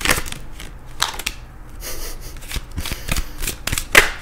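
A tarot deck being shuffled by hand: an irregular run of quick card flicks and snaps with a soft rustle between them, the loudest snap just before the end.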